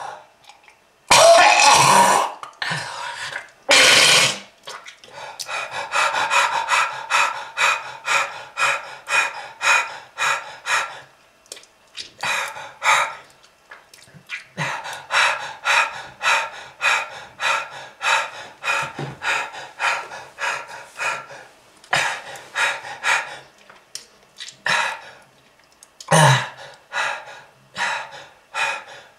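A person coughing hard and repeatedly in a smoker's coughing fit. A few heavy coughs come first, then long runs of short rapid coughs at about two to three a second, with brief pauses and another heavy cough near the end.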